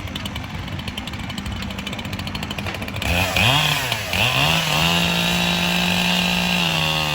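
Two-stroke chainsaw idling with a fast, even rattle, then revved up about three seconds in and held at full throttle as a steady high-pitched whine, its pitch dipping slightly near the end.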